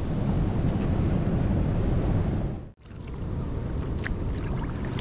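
Wind buffeting the microphone over rushing river water. It drops out abruptly for an instant a little past halfway, then returns as a steadier, slightly quieter wind and water noise with a few faint clicks.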